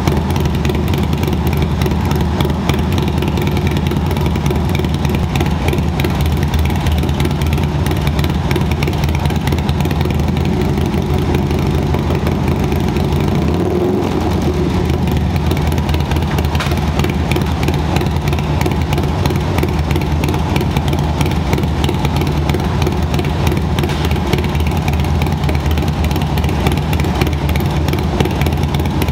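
Harley-Davidson Low Rider ST's Screaming Eagle 131 V-twin idling steadily on its first start after the stage 4 build, not yet dyno-tuned.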